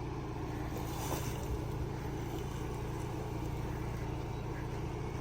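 Ford Bronco driving on a trail, heard from inside the cabin: a steady low engine and road hum.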